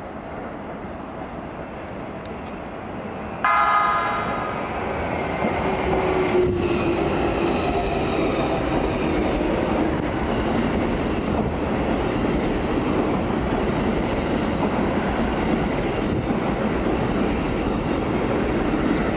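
Keikyu electric train running on rails: a moderate rumble at first. About three and a half seconds in, it jumps much louder as a train runs close along a platform, opening with a short horn-like tone. Then comes steady wheel-and-rail noise, with the VVVF inverter motors whining and gliding in pitch.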